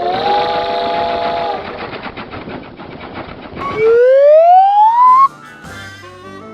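Cartoon sound effects: a fast rattling clatter with a held horn-like chord over its first second and a half. Then a loud slide-whistle-like tone rises steadily in pitch for over a second, and light music follows.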